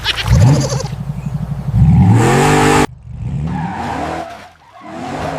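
Vehicle engine sound effect revving up and down. It rises steeply about two seconds in and cuts off suddenly just before three seconds, then goes on more quietly.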